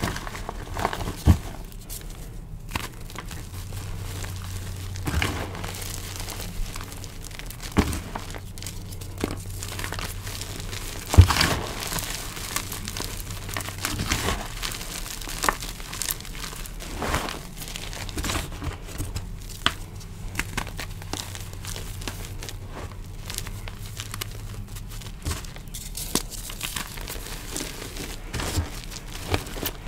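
Hands squeezing, crushing and rubbing dyed gym chalk powder and crumbled chalk pieces: soft powdery crunching and rustling with sharper crunches now and then, the loudest about eleven seconds in.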